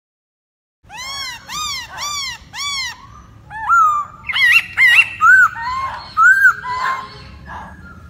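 Black-throated laughingthrush singing: about a second in, four loud arched whistled notes, about two a second, then a run of varied, loud whistled phrases.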